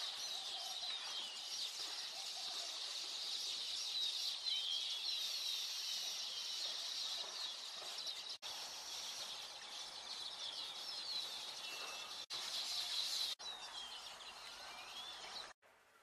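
A dense chorus of many small birds chirping and twittering in quick high notes over a steady faint hiss. It breaks off for an instant three times and stops shortly before the end.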